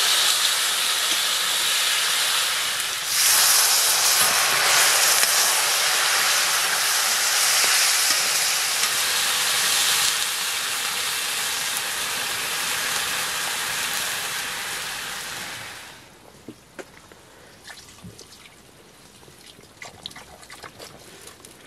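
Pork frying in a wide pan over a wood fire with a steady sizzle, then water poured in from a kettle hits the hot fat about three seconds in with a sudden louder sizzle and hiss of steam. The sizzle eases about ten seconds in and dies away about sixteen seconds in, leaving only faint scattered clicks.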